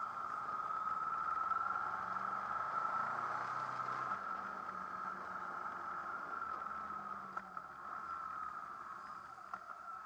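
Honda VFR800 V-TEC's V4 engine running at low road speed, heard muffled through a bike-mounted camera as a steady mid-pitched hum with wind and road noise, plus a couple of light clicks near the end.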